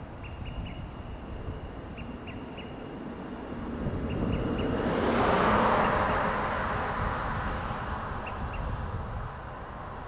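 Olive-sided flycatcher calling sharp pips in quick groups of three, a group every couple of seconds, then a pair near the end. A rushing noise swells in the middle and fades, louder than the calls.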